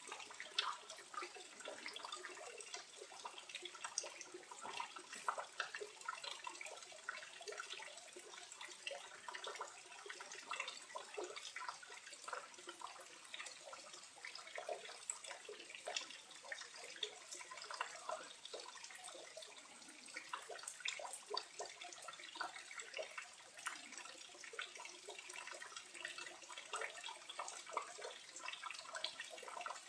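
Small waterfall running with little water, softly babbling and splashing in many small drops.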